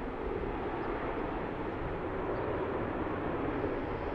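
Airbus A380's four Rolls-Royce Trent 900 jet engines at takeoff thrust as the airliner lifts off and climbs, a steady, even rushing noise.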